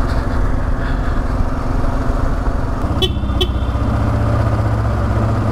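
Kawasaki KLR650S single-cylinder engine running steadily while the bike is ridden, its note shifting lower about three seconds in. Two short high-pitched beeps sound close together at about the same point.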